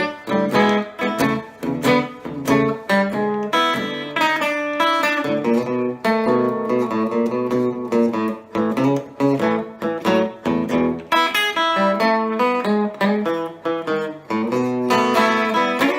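Epiphone Casino hollow-body electric guitar played through a Vox AC15C1X valve amp's Top Boost channel, with a steady run of picked chords and single notes.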